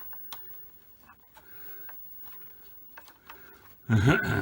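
Faint rubbing and scraping handling sounds in short patches, with a few light clicks.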